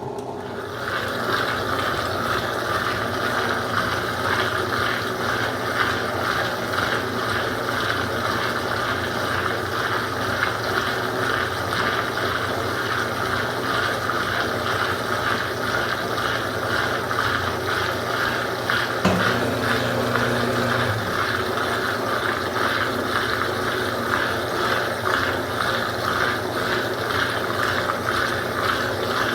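A Consul CWL08C top-loading washing machine running through its cycle, with a steady, rhythmic mechanical and water noise. About 19 seconds in there is a click, then a low hum for about two seconds.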